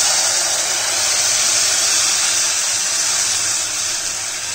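Loud sizzling hiss of hot water poured into a kadhai of spice paste frying in oil, the water hitting the hot oil. It starts suddenly and eases slightly toward the end.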